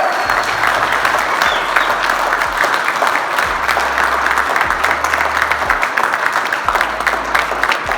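A crowd of people applauding: sustained, dense clapping that stays steady throughout.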